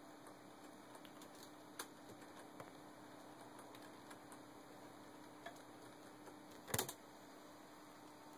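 Faint computer keyboard keystrokes, a few scattered clicks over a steady low hum, with a louder short clatter of clicks near the end.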